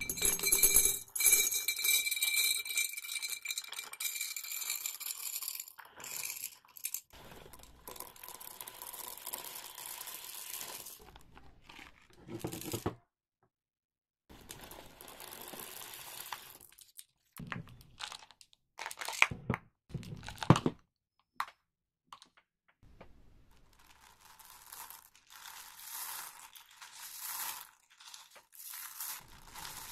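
Candy wrappers being torn open and crinkled, loudest in the first few seconds, with scattered rustling and a few sharp clicks about two-thirds of the way through.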